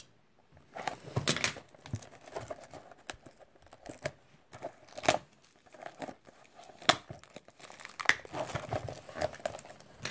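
Clear plastic shrink wrap being torn and peeled off a cardboard box, crinkling with uneven sharp crackles.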